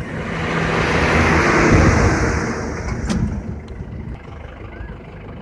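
Tractor engine running under load as its mounted earth auger works in the ground. A rushing noise swells over the first two seconds and dies away by about four seconds in, over a steady low engine rumble, with a sharp click about three seconds in.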